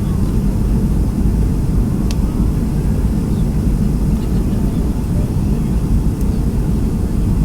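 Steady low rumble of engine and airflow noise inside the cabin of a Boeing 757 on its landing approach.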